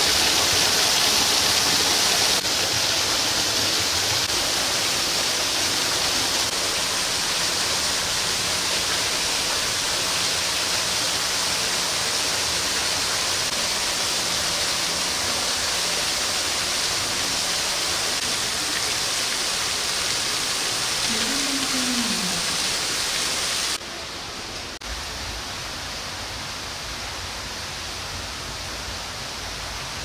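A steady rushing hiss with no clear events in it. About three-quarters of the way through it drops suddenly to a quieter, duller hiss.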